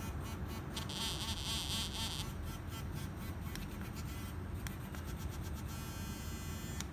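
Small handheld wand massager's vibration motor buzzing, switched on. The pattern changes a few times as its buttons are pressed, at times pulsing in quick regular beats.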